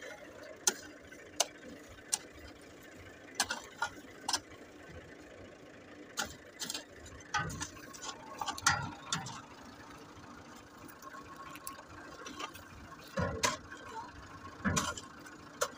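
Short-handled hoe chopping and scraping into hard, dry soil: irregular sharp strikes, a dozen or so, some with a dull thud.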